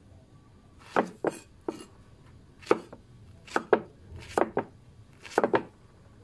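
Kitchen knife chopping through peeled gourd and striking a solid wooden chopping board: about ten sharp knocks at an uneven pace, often in quick pairs.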